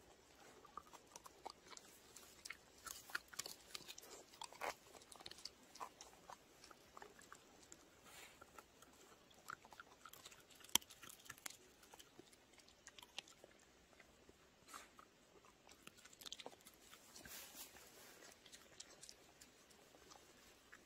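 A dog chewing on a piece of pine: faint, irregular crunches and clicks of its teeth on the wood, with one sharper crack about eleven seconds in.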